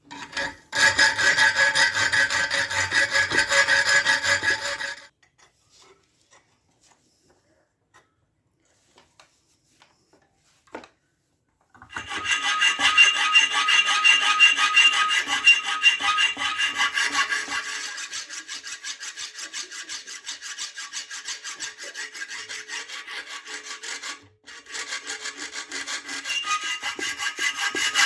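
Steel knife blade being rasped by an abrasive, the metal ringing under the strokes. A loud spell at the start lasts about four seconds. After a pause with a few light clicks, a long run of rapid rasping strokes follows, with a brief break near the end.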